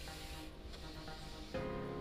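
Background music of held chords, with a new, louder chord coming in about one and a half seconds in.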